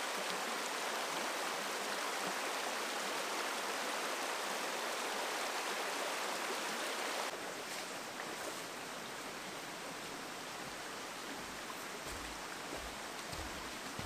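Shallow rocky stream rushing steadily. About seven seconds in, this gives way to a quieter steady background hiss, and near the end a few low thuds of footsteps come close.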